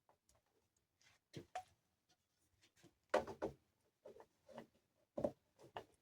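Scattered light knocks and clicks from the animatronic's wheelchair being handled during assembly. They come as short separate taps, the firmest cluster a little past halfway.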